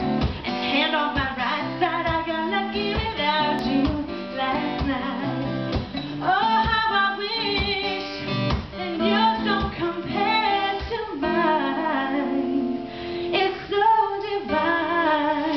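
A woman singing a song live with guitar accompaniment.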